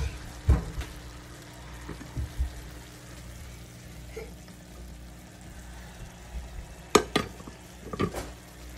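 Quiet, steady simmering hiss of stovetop cooking, with a faint low hum and a couple of soft knocks. Near the end come sharp clinks, the loudest about seven seconds in, as the glass lid of an Oster rice cooker is handled.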